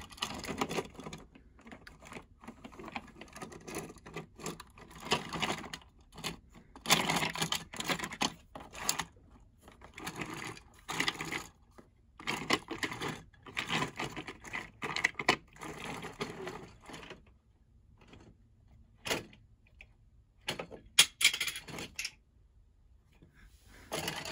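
Plastic toy trains and track pieces being handled: irregular bursts of clicking, rattling and scraping plastic, then a few single clicks near the end.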